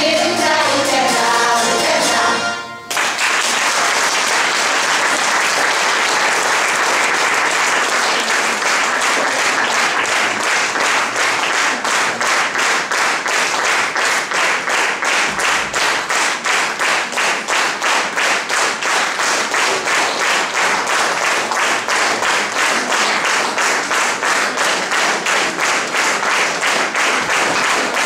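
A women's choir singing a folk song with citeras (Hungarian table zithers) stops abruptly about three seconds in. Audience applause follows and settles into rhythmic clapping in unison.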